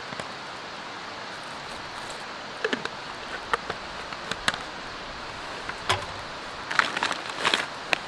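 Scattered clicks, clinks and rustles of camp cooking gear being handled around a mess tin, denser near the end, over a steady background hiss.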